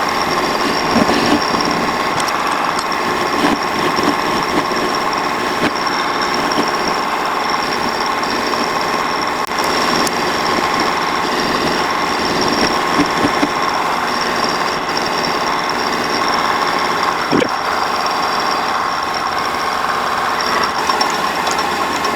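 Metal lathe running and cutting, thinning down a small metal part as the tool takes material off its back end: a loud, steady machine noise with a constant whine. A single sharp click comes about three-quarters of the way through.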